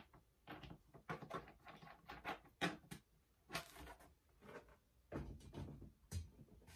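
Plastic storage drawer being handled: a scattering of light knocks and rustles of plastic, with a couple of fuller knocks near the end as it is lifted and fitted into the metal cart frame.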